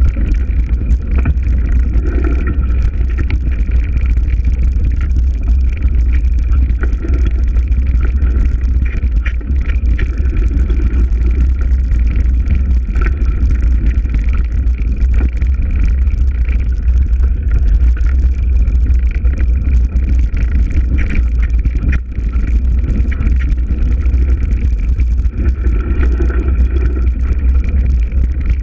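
Steady, loud low rumble of a moving vehicle, with wind buffeting the microphone.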